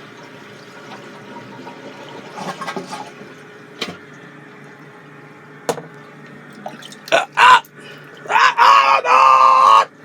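A steady low background hum with a few light clicks, then near the end two high wordless voice sounds: a short one, and a longer one held for about a second and a half with a slight waver.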